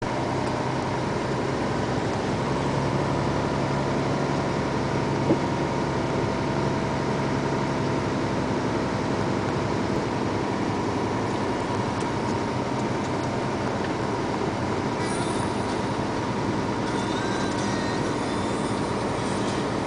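Steady engine and tyre noise heard inside a moving vehicle's cab on wet asphalt, an even drone with a low hum, broken by a single sharp knock about five seconds in.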